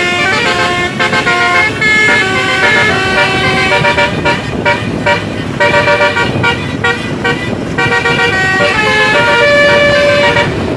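Indonesian 'telolet' Basuri multi-tone bus horns playing a string of melodic phrases. Steady notes step up and down in pitch every fraction of a second, over a constant noisy rush.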